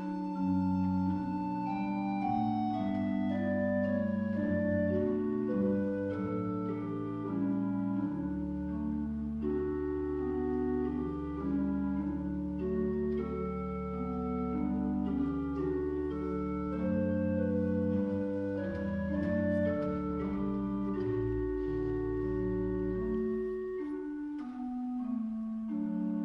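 Church pipe organ playing slow music in sustained chords, with long-held low pedal bass notes.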